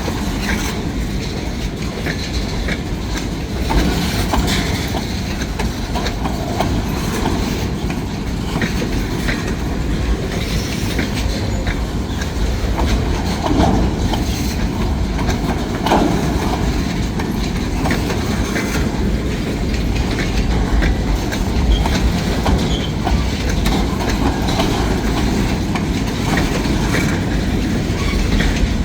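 Train cars rolling past at a crossing: a steady noise of wheels on rail, with scattered clicks and clacks as the wheels pass over the rail joints.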